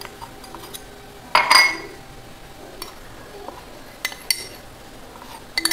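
Clinks and taps of a cup against a stainless-steel mixer-grinder jar as flour is tipped into it. The loudest clink, with a short ring, comes about one and a half seconds in, and a few lighter taps follow near the end.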